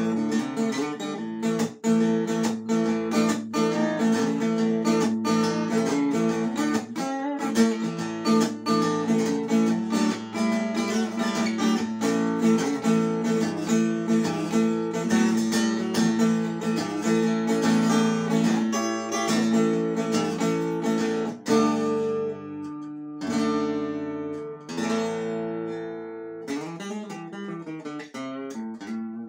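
Solo acoustic guitar playing blues, with dense, rhythmic picking through most of the stretch. It thins out to a few separate notes and chords left ringing near the end.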